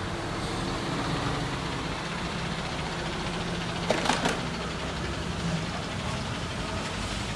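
MAN TGA 18.430 truck's diesel engine running steadily at low revs as it moves slowly, hauling a trailer-mounted mobile screening plant. A brief sharp clatter about four seconds in.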